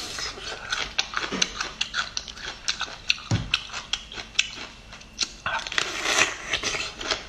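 Crunching bites and chewing on a cooked bamboo shoot, many sharp crisp cracks, with a louder, denser crunch of a fresh bite a little before the end.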